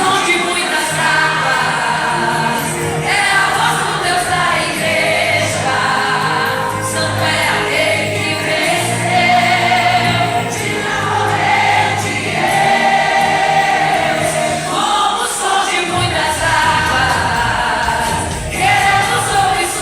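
Choir singing a slow gospel song in long held notes, phrase after phrase.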